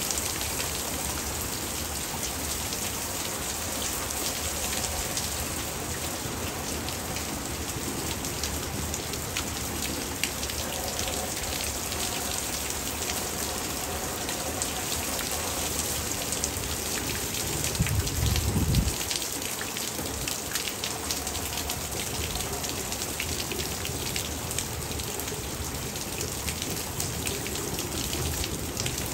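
Hard rain falling steadily: a dense hiss of drops hitting surfaces, with many small individual drop ticks. A brief low rumble swells and fades about two-thirds of the way through.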